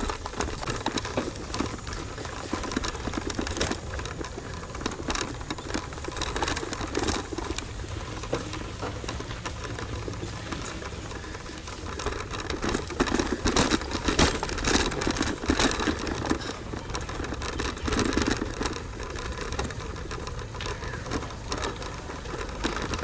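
Fast, irregular mechanical rattling over a steady low rumble, with a louder stretch about halfway through.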